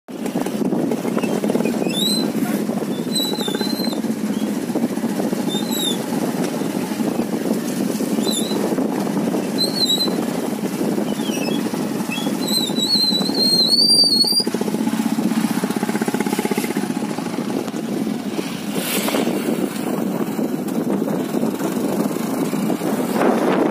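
Steady low rushing noise, with a small bird chirping in short, high, repeated calls over it, busiest a little past halfway.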